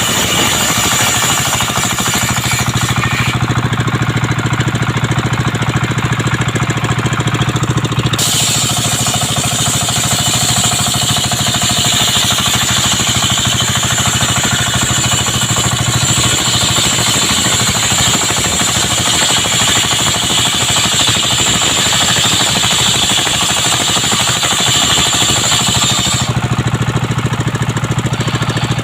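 Engine-driven circular sawmill (serkel) running steadily with a throbbing engine beat, its blade sawing coconut wood. The high whine of the cut is heard for the first few seconds, stops, then comes back from about eight seconds in and stops shortly before the end.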